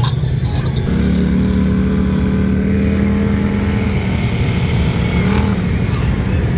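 Side-by-side (UTV) engines running as the vehicles drive past in a steady low rumble. One engine note holds steady for several seconds, then wavers and fades a little before the end.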